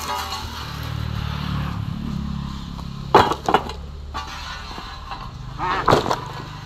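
A vehicle engine running at a steady note, swelling over the first few seconds and then easing, with sharp knocks about halfway through and again near the end.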